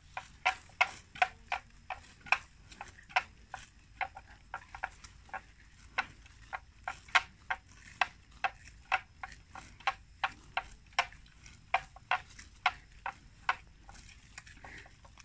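Water buffalo grazing close by, tearing off grass in a string of crisp snaps, about two or three a second, which thin out near the end.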